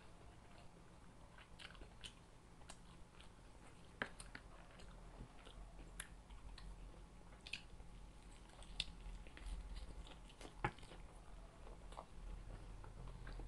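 A person eating close to the microphone: faint chewing and biting with scattered crisp crunches and mouth clicks, the sharpest about four seconds in and near eleven seconds.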